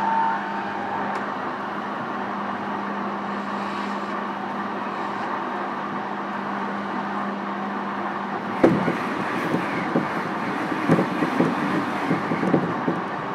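E233-series electric train motor car running at speed, with rolling noise and a steady hum. About eight and a half seconds in, a sharp knock starts a run of irregular clacks from the wheels passing over rail joints or points.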